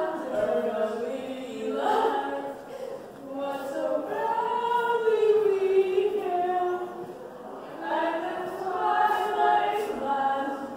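Choral music: a choir singing a cappella, several voices in harmony holding long, slowly moving notes.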